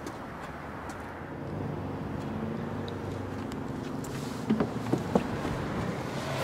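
Steady outdoor background noise with a low vehicle-like hum that grows a little louder about a second and a half in. There are three sharp knocks about four and a half to five seconds in, as the camera is handled near the dashboard.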